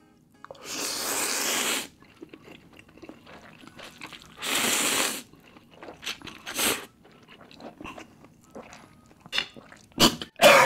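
A person slurping instant laksa noodles into the mouth twice, each slurp lasting about a second, followed by quieter chewing and small mouth clicks.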